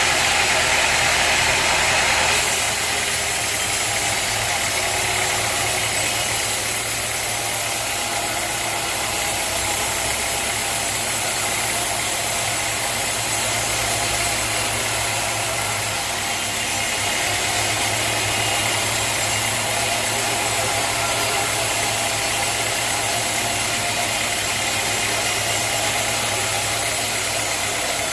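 Sawmill machinery running steadily with a low hum. A louder hiss in the first two seconds falls away about two seconds in.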